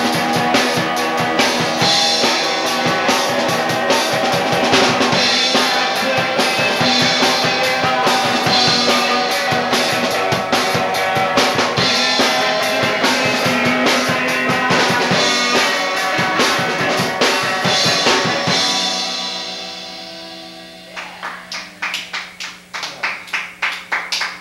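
Live rock duo of electric guitar and drum kit playing with steady drum hits. The song ends about 18 seconds in and dies away, leaving a steady amplifier hum, and near the end a few people clap.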